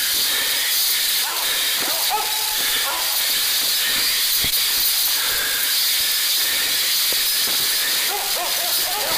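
Steady rustling hiss of someone running through brush and undergrowth, with hounds barking faintly in the distance a few times, the barks picking up near the end.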